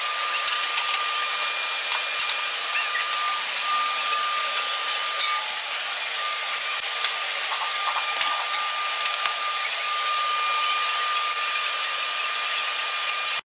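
A steady rushing noise with a thin high whine running through it, and scattered light clicks and knocks.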